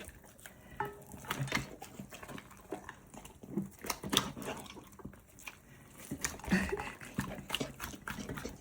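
A Labrador puppy eating, with irregular short chewing and mouth clicks.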